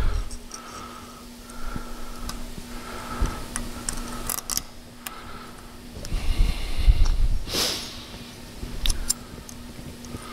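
Light metallic clicks and handling noise as metal abutment clips are fitted by hand into a cast-iron brake caliper bracket held in a vise, the sharpest click about seven and a half seconds in, over a steady low hum.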